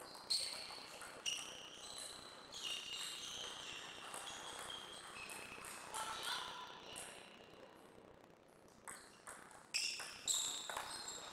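Table tennis ball being struck by paddles and bouncing on the table in a rally, a few sharp clicks near the start, then a lull, then a quicker run of clicks near the end as a new rally begins. High ringing tones sound between the hits.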